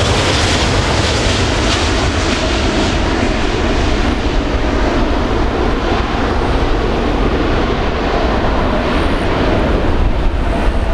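Boeing 787-8 Dreamliner's Rolls-Royce Trent 1000 turbofans at takeoff thrust as the airliner lifts off and climbs away. A loud, steady jet rumble whose high hiss fades after a few seconds as it moves off.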